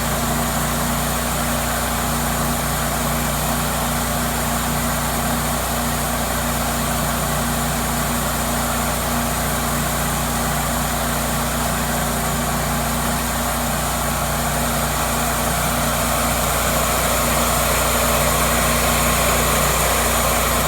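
Cook's MP-32 sawmill's engine running steadily, getting slightly louder near the end.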